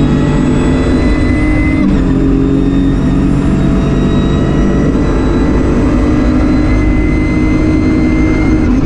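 BMW E36 M3's straight-six engine running hard, heard from inside the cabin over road and tyre noise. Its note steps to a new pitch about two seconds in.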